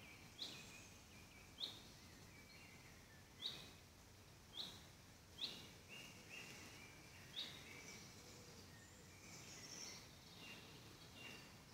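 Woodland birds calling: one bird gives a short, sharp, high call six times, roughly once a second, and softer high twittering follows near the end, over a faint quiet background.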